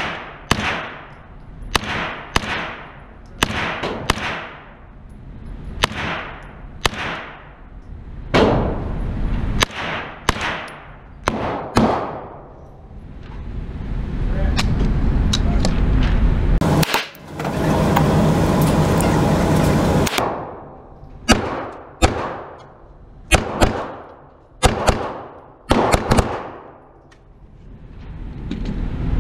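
A 16-inch AR-9 9mm pistol-caliber carbine firing single shots roughly a second apart, each ringing out in the echo of an indoor range. Later come quicker shots, some in close pairs. In the middle and again near the end a steady whir runs for several seconds, the range's electric target carrier moving the target.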